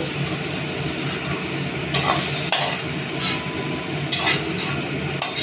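Fried chicken pieces sizzling in hot oil in a kadai while a metal spoon scrapes and clinks against the pan several times, scooping the pieces out.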